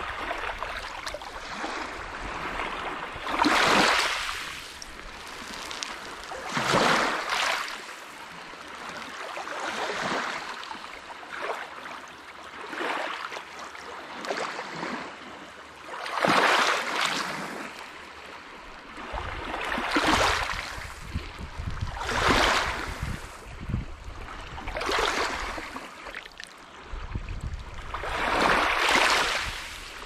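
Lake Superior waves crashing on the shore, surging in about every three seconds, each a rush of surf that swells and falls away.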